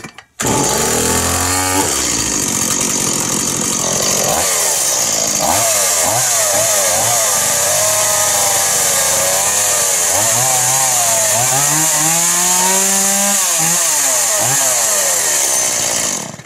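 Stihl 018 two-stroke chainsaw running off choke, revved up and down over and over, then shut off just before the end. To its owner it sounds right after the repair.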